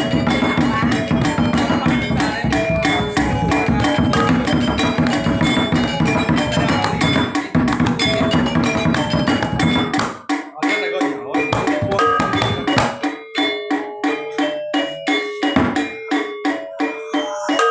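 Balinese gamelan accompanying topeng dance: drums and struck metal keys play a dense, loud passage, then about ten seconds in the drumming drops away, leaving a sparser run of ringing pitched notes.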